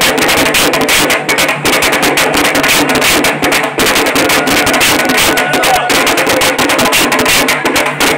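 Loud music dominated by fast, continuous drumming, its beats coming several times a second.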